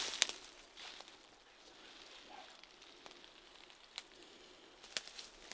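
Quiet background hiss broken by a few faint, sharp clicks: one just after the start, one about four seconds in and one near the end.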